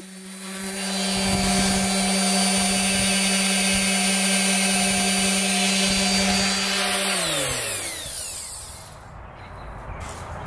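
Random orbital sander running steadily as it sands cured thickened-epoxy filler flush on a fiberglass boat deck, a steady motor hum with a hiss of abrasion. About seven seconds in it is switched off and winds down, its pitch falling.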